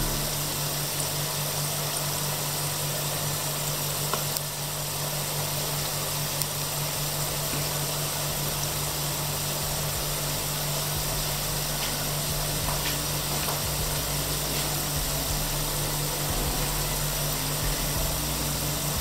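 Olive oil sizzling steadily around potato sticks deep-frying, with faint scattered crackles. The potatoes are nearly cooked and the heat has been turned up to crisp them. A steady low hum runs underneath.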